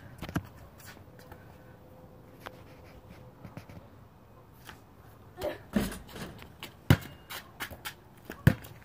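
A basketball knocking on a concrete driveway and the hoop: a handful of separate sharp knocks, the two loudest about seven and eight and a half seconds in, with faint shuffling between.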